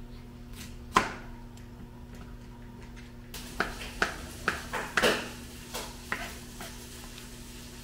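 Kitchen knife chopping vegetables on a plastic cutting board: one sharp knock about a second in, then a run of irregular knocks of the blade on the board in the middle, over a steady low hum.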